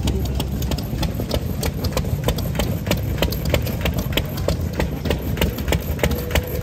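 Old single-cylinder stationary farm engine running steadily at a slow idle, each firing stroke a sharp beat, about three a second, over a low rumble.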